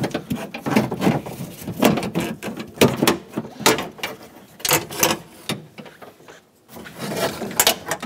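A Chevrolet Silverado 2500HD front door latch assembly being twisted and wiggled out past the window track inside the door, its plastic and metal knocking against the door frame and rods in irregular clicks, knocks and rattles. There is a brief lull about three-quarters of the way through.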